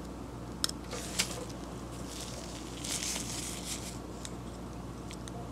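Faint handling noise: two light clicks about half a second apart as a metal pick touches a ratchet's small steel reversing switch, then a soft rustle of disposable gloves near the middle.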